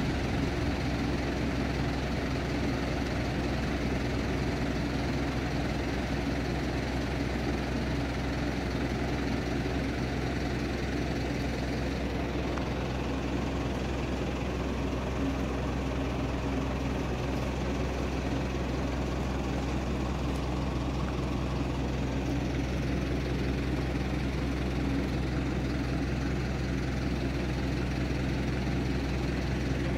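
A steady, low mechanical drone with a constant hum, unchanging throughout.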